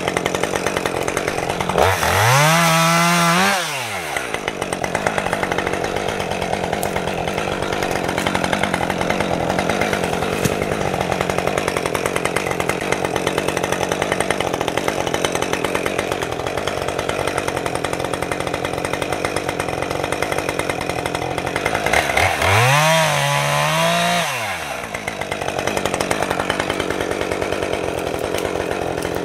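Chainsaw running steadily, revved up twice, about two seconds in and again near the end; each rev rises and falls in pitch over about two seconds.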